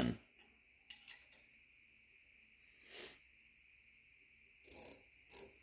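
Quiet handling of a micrometer held in a bench stand: a few small clicks about a second in and brief scraping near the end as the part is set between the anvils and the thimble is closed. A faint steady high-pitched whine sits underneath.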